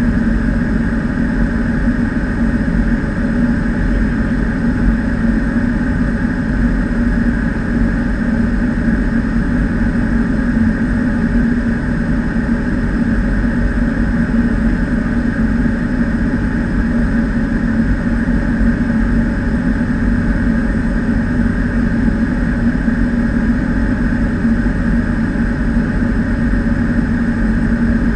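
Steady low drone of a Cessna 208B Caravan's PT6A turboprop engine and propeller, heard inside the cockpit in flight.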